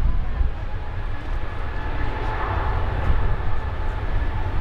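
Airbus A321neo's CFM LEAP-1A turbofans at takeoff thrust during the takeoff roll: a steady rumble with a steady whine above it.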